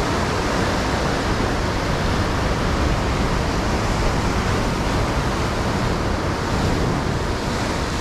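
Steady rush of ocean surf washing onto the shore, mixed with wind on the microphone.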